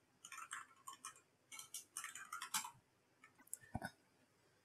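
Faint, irregular keystrokes on a computer keyboard, a quick run of clicks over the first three seconds, then two sharper clicks near the end.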